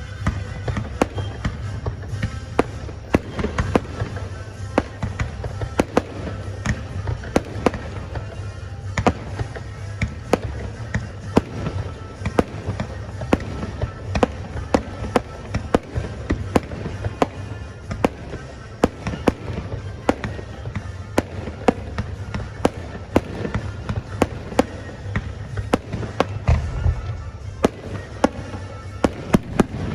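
Fireworks display going off in a rapid, steady string of bangs, about two a second, with music playing underneath.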